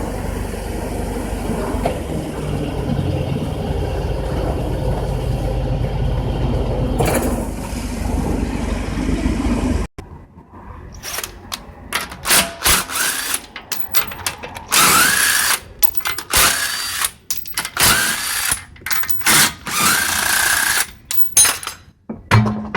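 A steady low rumble for about the first ten seconds, which cuts off suddenly. Then a power tool whirs in many short bursts, each rising in pitch.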